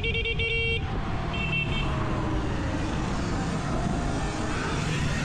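Rapid beeping tone for the first second, with a short repeat about a second and a half in, then a steady rush of wind and road noise with a low hum, as heard while riding through city traffic.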